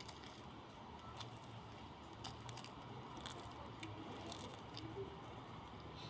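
Light rain dripping: scattered faint ticks over a steady low hiss.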